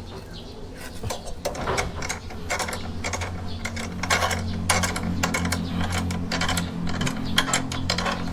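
Irregular metallic clicking and ratcheting from a wrench turning a motorcycle's chain adjuster to tension the new drive chain, over a steady low hum.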